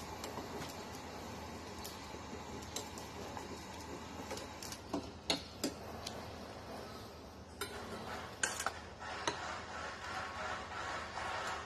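Metal tongs clinking and scraping against a steel pot as boiled pork pieces are lifted out of the water: a scattering of light clinks, several close together about five seconds in, over a steady hiss that grows louder near the end.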